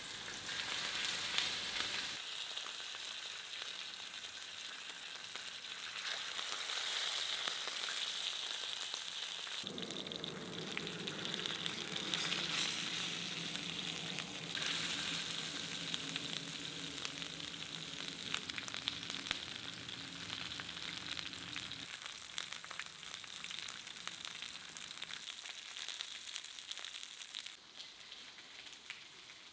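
Lamb rib chops frying in fat on a hot steel saj pan: a steady sizzle full of fine crackling.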